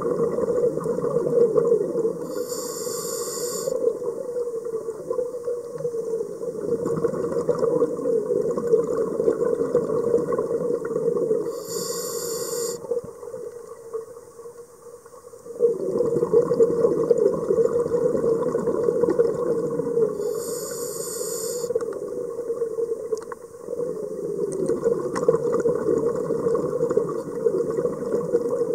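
Scuba diver breathing through a regulator underwater: a continuous rumble of exhaled bubbles, easing off briefly about halfway, with a short high hiss about every nine seconds.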